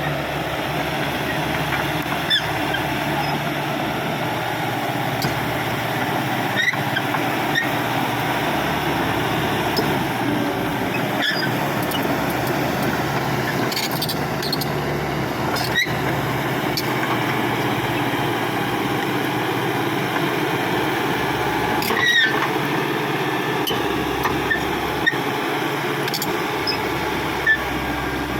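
Caterpillar D5K XL crawler dozer at work: its diesel engine runs steadily while the steel tracks squeal and clank, with sharp squeaks and knocks every few seconds.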